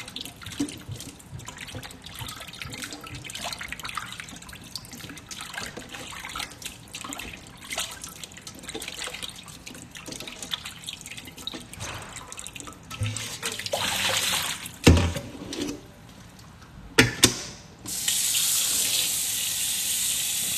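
Raw chicken wings being swished and rinsed by hand in a metal bowl of water in a stainless steel sink, with small splashes and clinks, and a few louder knocks in the second half. Near the end the kitchen tap comes on and runs steadily over the wings in a metal colander.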